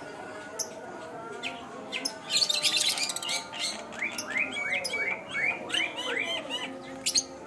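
Birds chirping: a cluster of sharp high calls, then a run of quick chirps, each rising and falling, about four a second.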